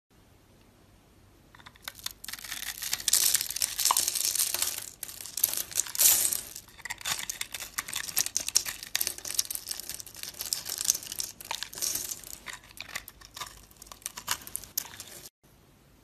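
A utility knife blade shaving through a bar of dry soap scored into a fine grid, the little soap cubes crunching and crackling off in a dense run of tiny clicks. It starts about two seconds in and cuts off suddenly near the end.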